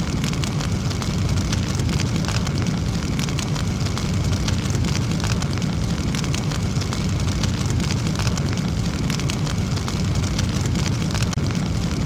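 Bonfire of dry sticks and leaves burning, with a steady low rushing roar of flame and constant crackling of twigs.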